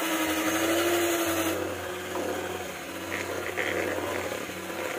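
Electric hand mixer running steadily, its beaters creaming butter and powdered sugar in a stainless steel bowl. The motor's whine rises slightly, then drops a little about a second and a half in.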